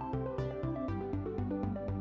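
Electronic background music with a steady fast beat under a shifting melody.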